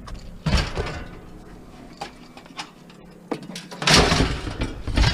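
Junk and scrap debris being pulled from a pile and dropped: a few knocks and clanks, then a loud clattering crash about four seconds in and another just after five seconds.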